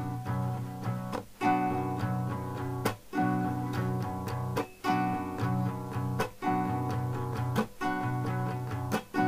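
Acoustic guitar strumming the 6/8 'vur vur vur kes çek' rhythm at a brisk tempo. The ringing chords are choked short by a muted 'kes' stroke about every second and a half.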